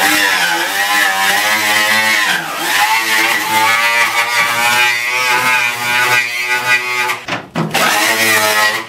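Angle grinder with a twisted stainless-steel wire wheel running and scrubbing rust off a car's steel floor pan, its motor whine wavering in pitch as the wheel bears on the metal. The whine dips briefly twice, about two and a half seconds in and again near the end.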